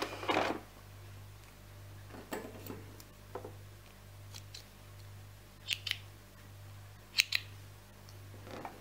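A sewing machine stops stitching about half a second in. Then small scissors snip loose threads off a freshly sewn seam in stretch fabric: about half a dozen short, sharp snips spread out with pauses between, two of them quick pairs, over a faint steady hum.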